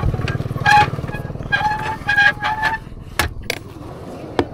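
A vehicle engine running with a fast, even pulse, dying away about three seconds in. Several short high tones sound over it, and a few sharp clicks come near the end.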